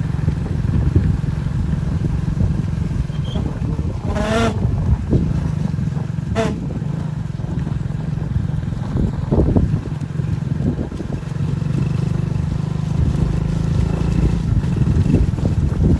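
Motorcycle engine running steadily at low, even revs, heard from on the moving bike.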